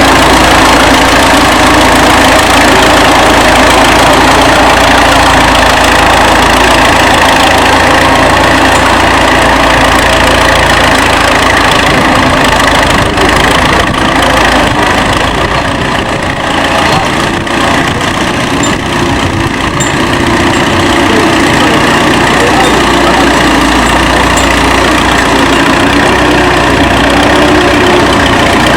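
1935 Fordson tractor's four-cylinder engine running steadily and loudly close by, dipping slightly in loudness about halfway through before picking up again.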